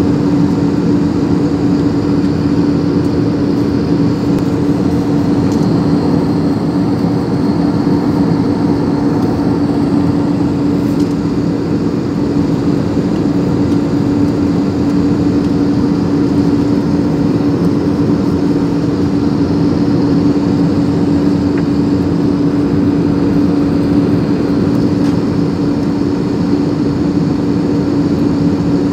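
Jet airliner cabin noise in flight: the steady rush of engines and airflow, with a constant low hum.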